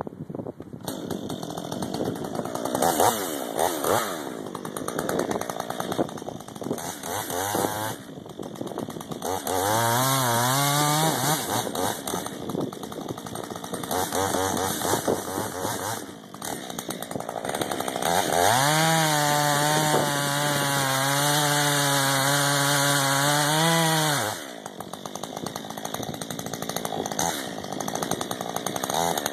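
Husqvarna 562 XP two-stroke chainsaw running at varying throttle. It revs up briefly about a third of the way in, then holds a high, steady pitch for about six seconds past the middle before dropping back.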